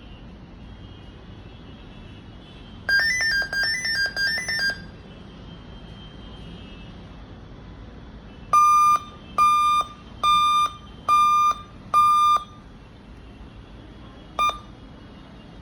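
A laptop giving out electronic beeps. First comes a quick warbling run of alternating high and low beeps, then five long, evenly spaced beeps, then a single short beep near the end, over a faint steady hum.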